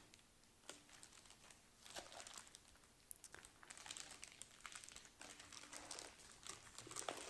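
Faint crinkling and rustling of cross-stitch kit packaging being handled, with a few light clicks.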